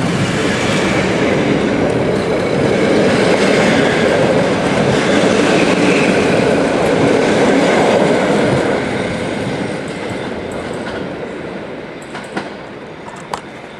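Train of passenger coaches running past close by, loud and steady, fading after about eight seconds as the last coach goes by. A couple of sharp clicks come near the end.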